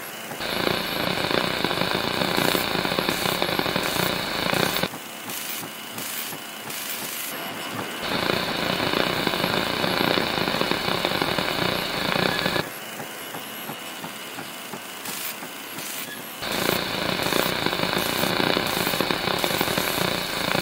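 Sound effects for a title sequence: three loud stretches of harsh, static-like noise, each about four seconds long and starting and stopping abruptly, with quieter noise between them.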